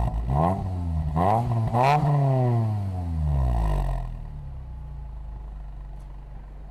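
Perodua Myvi 1.3's four-cylinder engine blipped three times in quick succession through a D-Sport stainless-steel full exhaust system (4-1 extractor, mid box and rear muffler), heard at the tailpipe. The pitch rises and falls with each blip, then drops back, and about four seconds in the engine settles to a quieter steady idle.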